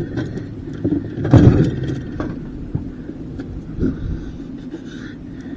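Knocks and clanks of metal parts being handled while a dishwasher is taken apart for scrap, the loudest about a second and a half in, over a steady low rumble.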